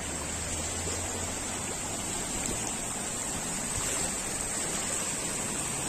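Fast-flowing muddy floodwater rushing and churning, a steady, even noise.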